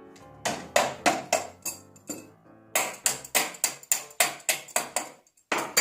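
Rapid sharp knocks, about four a second in two runs with a short break between, from parts of a metal stand being struck to free the post, over background music.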